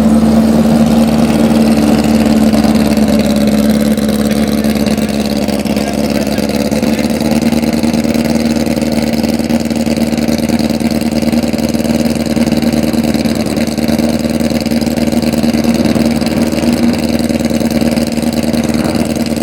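Drag-race air-cooled Volkswagen engine idling steadily at an even pitch, its level unchanging.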